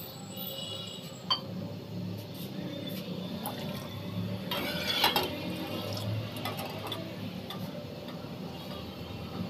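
A steel ladle dipping into and stirring milk in a metal saucepan: liquid sloshing with light clinks of the ladle against the pan, busiest about five seconds in. A sharp click comes about a second in, over a steady low hum.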